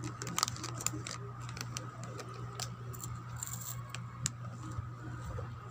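Plastic snack packet crinkling and crackling in the hands as it is handled and opened, in scattered short clicks that are busiest about the first second, over a steady low hum.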